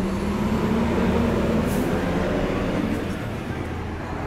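A large road vehicle passing close by, its engine a steady low drone that swells about a second in and eases off after about three seconds.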